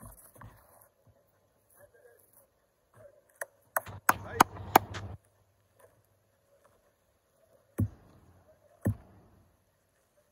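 A cricket batsman's bat tapping the dry pitch at the crease: a quick run of four sharp knocks about four seconds in, then two single thumps about a second apart near the end.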